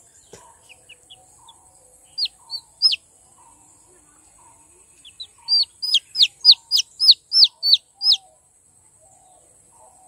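Red junglefowl chicks peeping: short, high peeps that fall in pitch. Three loud peeps come about two seconds in, then a quick run of about a dozen from about five to eight seconds in.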